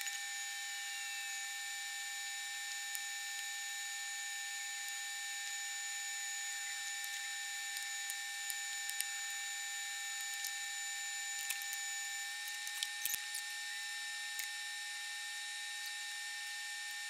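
Electric heat gun running with a steady fan whine and hiss while heat-shrink tubing is shrunk onto battery cable lugs; it cuts off about twelve seconds in. A few light handling clicks.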